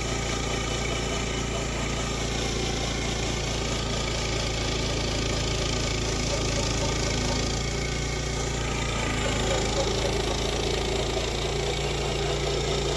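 Small gasoline engine of a portable band sawmill running steadily, its pitch shifting slightly a little past the middle.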